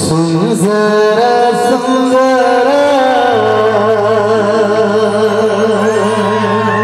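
Male singer performing a Sambalpuri song live through a PA, holding long notes that waver and bend in pitch over sustained keyboard chords.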